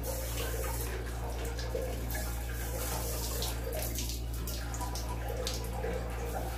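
Handheld bidet sprayer (shattaf) spraying water into a toilet bowl: a steady hiss and splash, with a steady low hum underneath.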